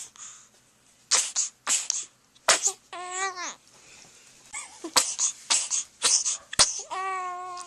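A baby sneezing several times, short sharp sneezes spread through the clip, with two brief high-pitched baby vocal sounds in between, one about three seconds in and one near the end.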